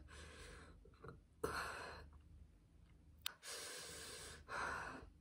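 A woman taking three long, airy breaths through the mouth, the hard breathing of someone enduring the burn of a super-hot chili chip. A short click sounds just after three seconds in.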